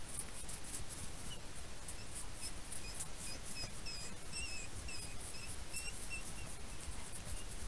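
A small animal giving a run of short, high chirps, about two a second, starting about a second in, over a steady hiss.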